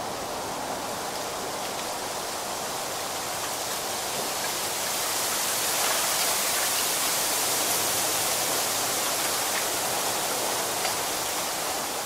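Wind rustling through the leaves of a bamboo grove: a steady hiss that swells a little about halfway through.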